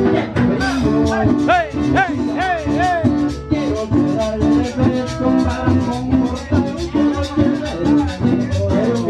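A live Latin dance band plays with a steady beat: acoustic guitar, upright bass and drums with timbales. About a second and a half in, four short sliding high notes rise and fall over the band.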